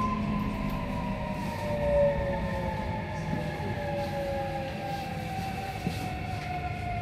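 JR Kyushu 811 series electric train heard from inside its motor car: the traction motor and inverter whine, several tones gliding slowly down in pitch as the train slows into a station, over the steady rumble of the wheels on the rails.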